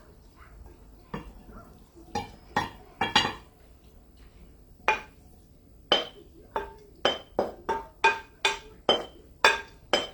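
Kitchen utensil clinking against cookware, each strike ringing briefly. A few scattered clinks come first, then a fairly even run of about ten clinks, two or three a second, over the last few seconds.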